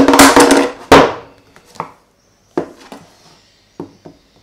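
Two loud strikes about a second apart, each ringing on briefly, then a few light knocks as a large knife and a box are handled on a wooden desk.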